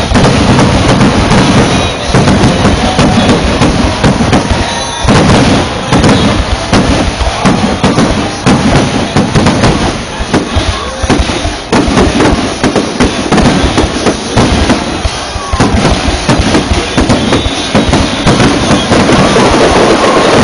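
Fireworks barrage: loud shell bursts and crackling in quick succession, many a second, with only brief lulls.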